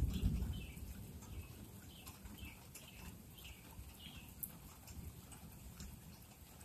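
The tail of a thunderclap rumbles and fades away in the first second or so. Then faint bird chirps sound over a quiet background.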